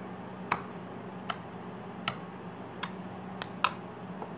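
Fluffy homemade slime made with shaving cream, poked with the fingers and giving a string of sharp little clicks, about six of them, roughly one every three-quarters of a second.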